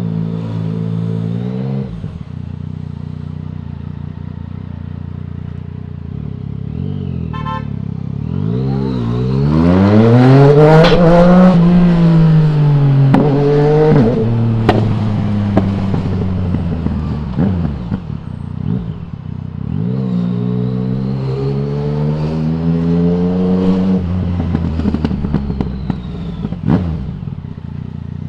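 2020 Yamaha MT-09's 847 cc inline-three through an Akrapovic full exhaust system without dB killer, riding along. About eight seconds in it accelerates hard with a rising engine note, then rolls off and slows with sharp pops and crackles on the overrun. A second, milder acceleration comes later, easing off again near the end.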